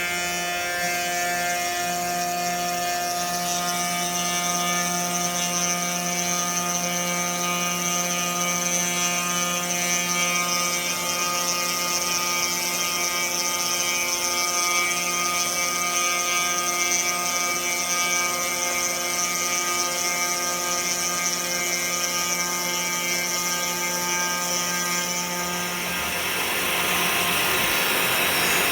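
CNC 3018 Plus desktop router's spindle motor running steadily while milling, a constant whine with a hiss above it. Near the end the whine fades and a louder, steady rushing noise takes over.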